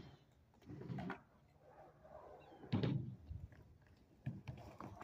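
Skateboard knocking on a concrete ramp: three dull thuds from the board, the loudest about three seconds in.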